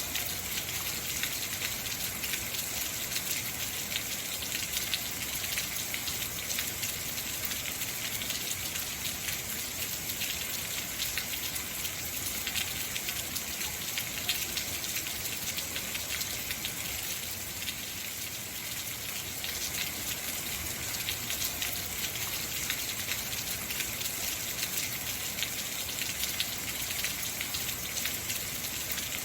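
Heavy rain falling steadily: a dense hiss of countless drops, easing slightly for a couple of seconds a little past the middle.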